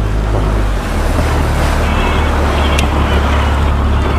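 Yamaha outboard motor running under way, its low hum changing pitch about a second in, with water rushing and splashing past the hull and wind on the microphone.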